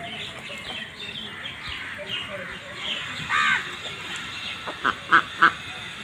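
Domestic ducks quacking, with a longer call about three and a half seconds in and three short, loud quacks in quick succession near the end, over a steady background of softer calls.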